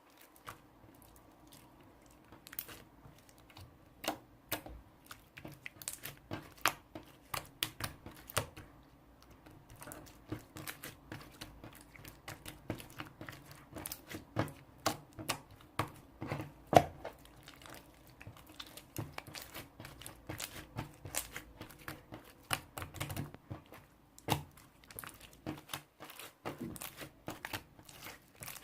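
Irregular light clicks and crinkling from things being handled, coming in quick runs with short gaps.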